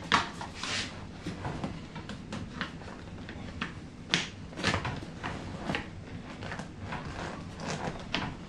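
Irregular clicks and knocks of Honda S2000 seat parts being handled and fitted back together.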